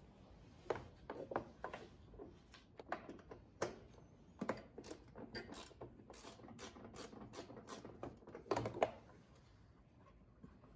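Ratchet wrench with a socket clicking through a run of short back-and-forth strokes while a belt-cover bolt on a two-stage snowblower is loosened. The clicks come about three a second, with one louder knock near the end.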